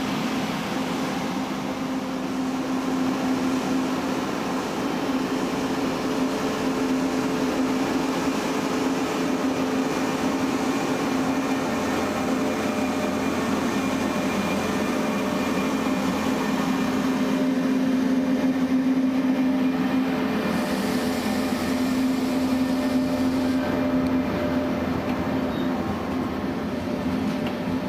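ETR 500 high-speed electric trainset running past on the rails, with a steady low hum over the rumble of the train.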